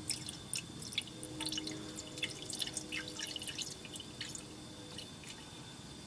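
Green coolant poured from a plastic jug into the open filler neck of a 1974 BMW 2002's empty radiator, splashing and gurgling in quick, irregular drips. It thins out and stops about five seconds in.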